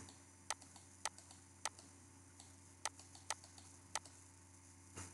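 Computer mouse clicking: about six short, sharp clicks at uneven intervals, over a faint steady low hum.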